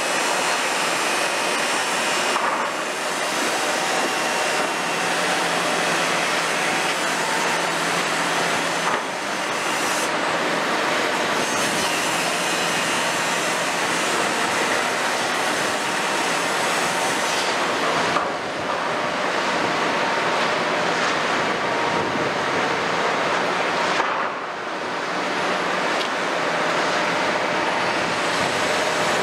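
Kobelco 350 excavator's Hino six-cylinder diesel and hydraulics working under load as it digs and swings to load a truck: a steady, loud machine noise that eases off briefly a few times.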